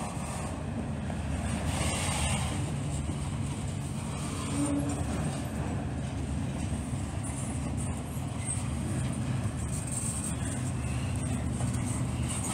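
Freight train cars rolling past: a steady low rumble of wheels on rail, with a few faint clicks.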